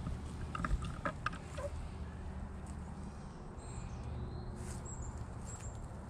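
Outdoor ambience on a GoPro microphone: a steady low rumble, a few sharp rustling clicks in the first second or so, and faint high bird chirps in the middle.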